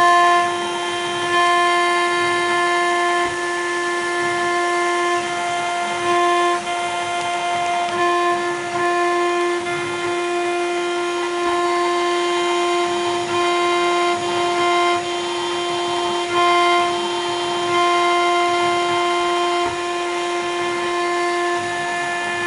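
CNC router spindle whining at a steady pitch as its bit carves a cylindrical acrylic rod, with a grinding cutting noise beneath. The sound briefly grows louder several times as the cutter moves along the workpiece.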